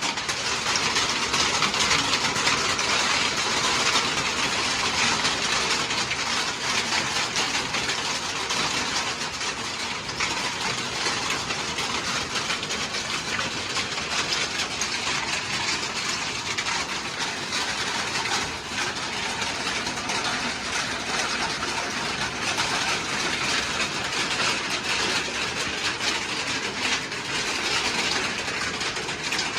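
Steady rain falling, an even wash of many small drops.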